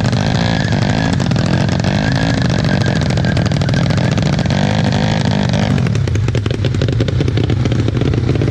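Motorcycle engine revving, its pitch rising and falling, then dropping suddenly to a lower, steadier running note about six seconds in.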